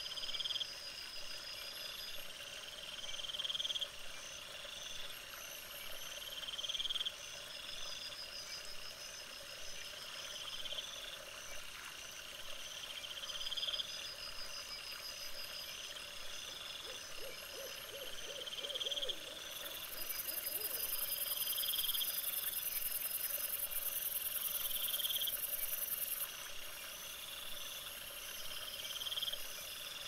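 Night chorus of repeated animal calls: a short rising call about every one and a half seconds over pulsed, higher-pitched calls, with a loud high-pitched buzz from about twenty to twenty-six seconds in.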